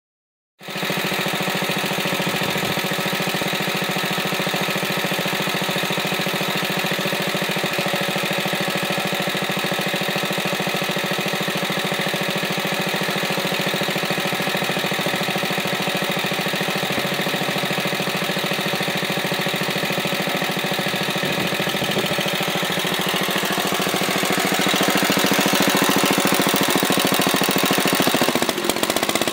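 Wisconsin ABS single-cylinder air-cooled engine running steadily at a constant speed while driving a generator, with an even, rapid pulse. It gets louder toward the end.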